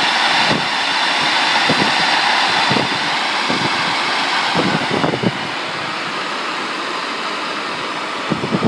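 A 2.65-horsepower treadmill motor (1.5 hp continuous duty) running at speed with a loud steady whir, a little quieter from about five seconds in.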